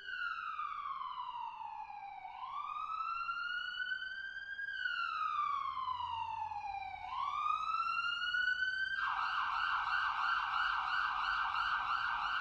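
Emergency-vehicle siren in a slow wail, rising and falling about every two seconds. About nine seconds in it switches to a fast warbling yelp.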